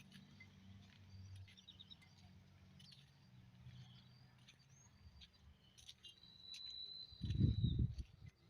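Birds chirping outdoors with short high calls scattered throughout, plus one longer steady high note about six seconds in. A low rumble runs underneath, and there is a loud low thump near the end.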